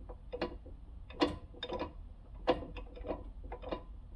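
Light metallic clicks and taps, about eight at uneven intervals, each with a brief ring: a small hand tool and washer knocking against the metal parts as the washer is worked into the bore of the transmission detent casting.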